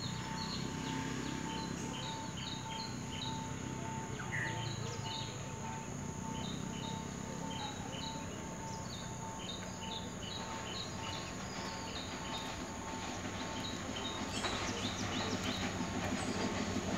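Birds chirping over the low drone of a diesel train approaching, the drone growing steadily louder near the end.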